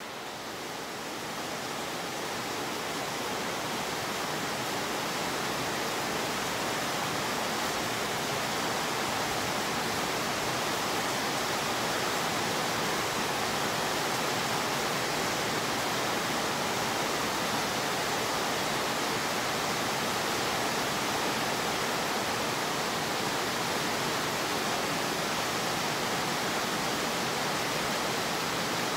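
Steady rain falling on a wet concrete yard: an even hiss that fades in over the first couple of seconds and then holds level.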